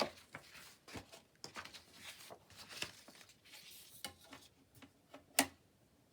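Sheets of paper being handled: scattered light rustles and taps, with one sharper knock about five seconds in.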